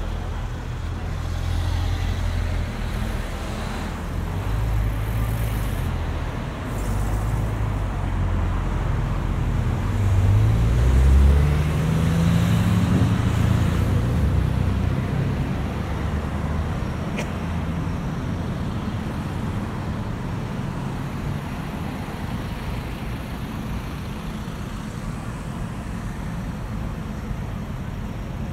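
Road traffic close by: vehicle engines running, with one accelerating in a rising engine note about ten seconds in, then a steadier traffic rumble.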